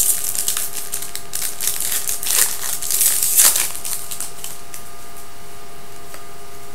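Foil card-pack wrappers crinkling and trading cards being handled, a run of sharp crackles and rustles for the first three and a half seconds or so. After that only a steady background hum remains.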